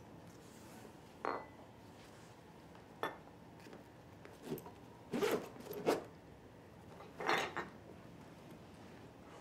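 A black backpack being handled and opened: a string of short clinks and rustles, the loudest coming in quick pairs midway and near the end.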